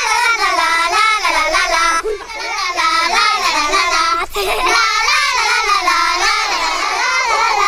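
High-pitched voices singing a song without a break, the melody bending up and down.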